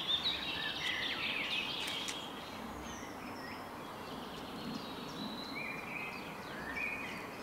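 Songbirds chirping and singing in short repeated phrases over a steady outdoor background hiss, with a couple of faint clicks about two seconds in.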